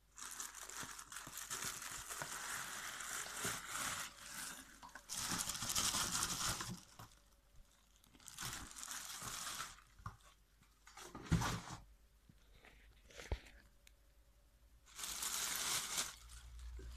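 Clear plastic bag crinkling and rustling in several bursts as a silicone mask is unwrapped from it, with two short thumps a little past halfway.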